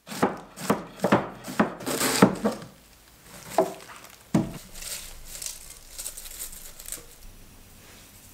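Shredded raw cabbage being gathered and pressed by hand on a wooden cutting board: crisp rustling and crunching. There is a quick run of sharp strokes in the first two and a half seconds, two more knocks a little later, then fainter rustling.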